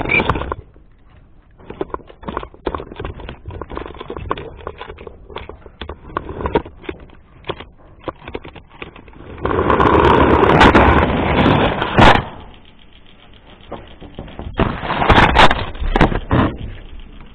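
A small motor whirring in bursts of a second or two, three times, with irregular clicks and rattles of handling between the bursts.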